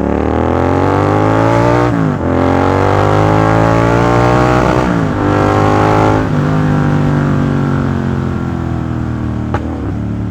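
Royal Enfield GT 650's 648 cc parallel-twin engine through an aftermarket exhaust, accelerating through the gears. The pitch climbs three times, each climb cut by a gear change at about two, five and six seconds in, then holds steady at cruising revs.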